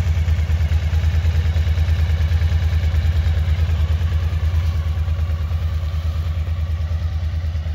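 Suzuki DL1000 V-Strom's 996 cc 90-degree V-twin engine idling steadily, with an even low pulsing beat.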